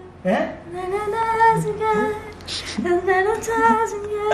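A woman singing a short unaccompanied melody in two phrases with long held notes, a brief break between them.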